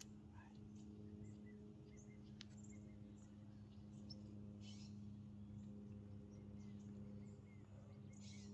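Near silence: faint, scattered short bird chirps over a steady low hum.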